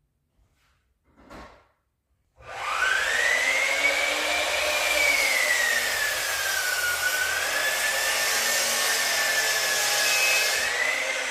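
A power tool motor starts suddenly and runs steadily, its whine sagging slowly in pitch and coming back up, as if under changing load. A brief faint knock comes just before it.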